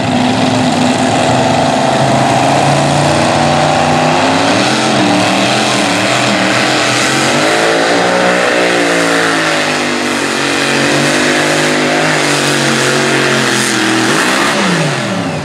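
Super modified two-wheel-drive pulling truck's engine running at high revs under load as it drags the sled down the track. The pitch wavers through the pull and drops away steeply near the end as the revs come off.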